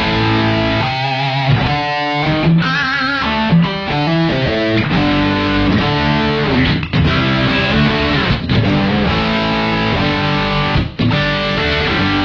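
Electric guitar played through an Electro-Harmonix EHXtortion JFET overdrive pedal with its boost channel fully up, giving a high-gain British-amp-style distortion. Held lead notes with wide vibrato in the first few seconds, then repeated chord riffs.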